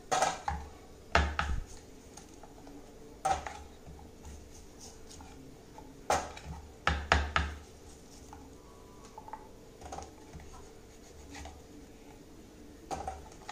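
Metal knife blade scraping and knocking on a wooden board as pieces of cooled, set sesame-jaggery brittle are prised off and lifted. The sharp scrapes and knocks come at irregular intervals, several of them in quick pairs.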